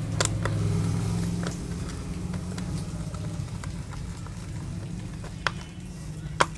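A screwdriver turning small screws into a plastic toy auto rickshaw's chassis, with scattered sharp clicks of metal on plastic, the sharpest near the end. Under it runs a steady low mechanical hum, strongest in the first second or so.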